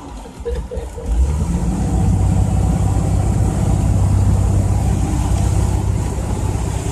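Boat engine running under way, getting louder about a second in and then holding a steady low drone.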